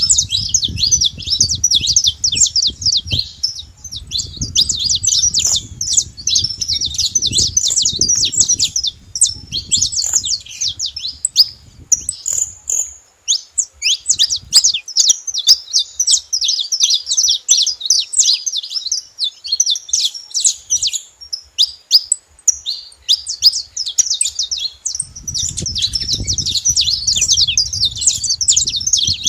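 Saffron finch singing, a fast run of sharp high chirps and trills that goes on almost without a break, thinning briefly about halfway through. A low rumble sits under it in the first half and again near the end.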